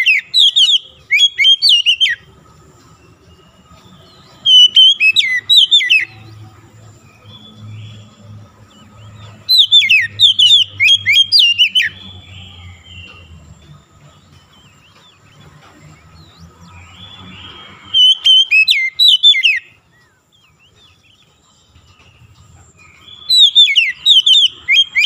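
Male oriental magpie-robin singing: five loud song phrases of one to two seconds each, separated by pauses. Each phrase mixes clear whistles sliding up and down with rapid high chattering notes.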